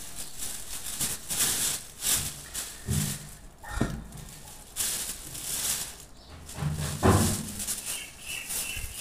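Thin plastic carrier bag rustling and crinkling in repeated short bursts as clothes are handled and pulled out of it.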